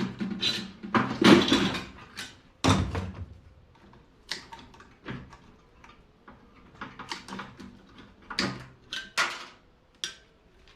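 Irregular metal clanks, knocks and scrapes as a microwave oven is pulled apart with hand tools: sheet-metal housing and internal parts being pried, cut and handled. The knocks are bunched in a few clusters, with quieter gaps between.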